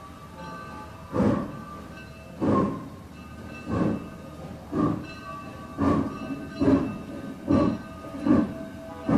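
Granite Rock Co. No. 10 steam locomotive working steam as it gets under way: loud exhaust chuffs begin about a second in and come steadily closer together, from about one every 1.3 s to more than one a second.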